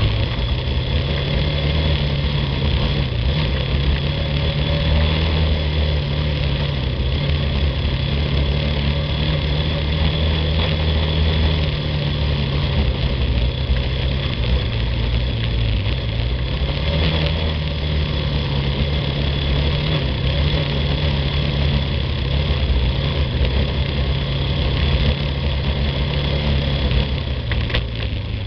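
Yamaha ATV's single-cylinder engine running steadily as the quad rides along a dirt trail. Its pitch rises and falls a little with the throttle, easing off about fifteen seconds in and picking up again a second later.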